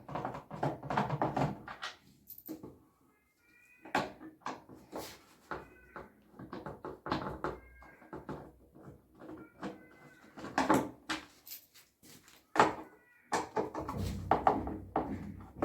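Irregular knocks and clatter of hard parts being handled, mixed with a few short high squeaks.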